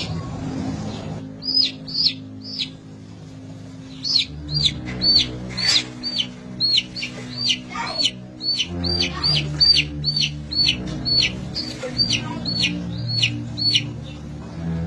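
A baby chick peeping over and over, about two short high peeps a second, each falling in pitch: the loud, insistent distress calls of a chick stranded in a pot of liquid.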